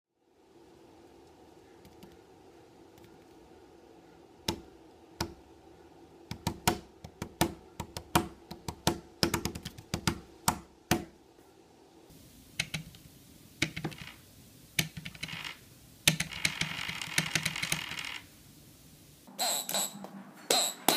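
Repeated sharp finger taps on a work surface beside a littleBits accelerometer module set to tap mode, coming irregularly several times a second. In the second half the taps continue, joined by a short electronic buzz and, near the end, a few high beeps from a littleBits speaker module.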